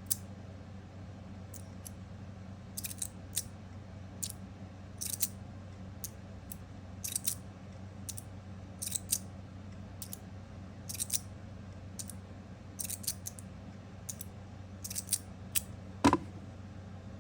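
Stainless steel magnetic fidget slider plates sliding and snapping into place at the corners: short sharp metallic clicks, often in pairs, about every one to two seconds, with one louder clack near the end.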